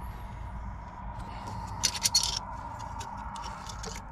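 Scraping and clicking of a motorcycle exhaust being worked back into place, with a cluster of sharper metal clicks about two seconds in, over a steady low hum.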